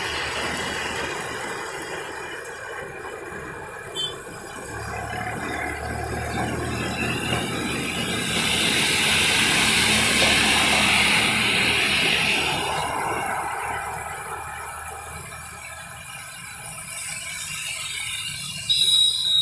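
Heavy rain hissing down on a road, with vehicles driving over the wet surface; it swells loudest about halfway through. A high squeal starts just before the end.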